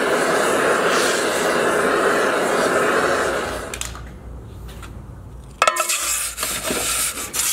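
Jeweler's gas torch flame rushing steadily while annealing a sterling silver strip, stopping about three and a half seconds in. Near the end, sharp metallic clinks and clatter of the metal and tools.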